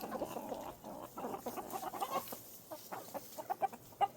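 A flock of chickens clucking, many short overlapping calls, busiest in the first two seconds and then thinning out.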